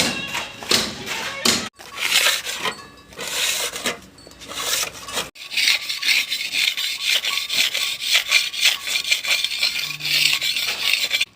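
Quick, repeated scraping strokes of a plastering tool working across cement plaster, with two abrupt breaks; the strokes grow brighter and sharper after the second break.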